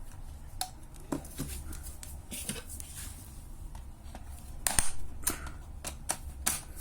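Scattered clicks and light knocks of metal and plastic parts being handled as a vacuum cleaner's motor is taken apart by hand. The loudest knocks come a little past halfway and near the end, over a faint low hum.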